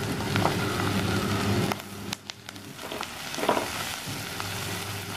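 Sliced onions and garlic sizzling in hot oil in a clay pot, stirred and scraped with a wooden spatula. A steady low hum runs underneath, and the frying dips quieter for about a second around two seconds in.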